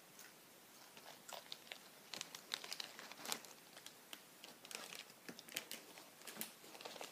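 Plastic potato-chip bag crinkling as it is handled and lifted away, mixed with the crunch of a chip being chewed: quiet, irregular crackles.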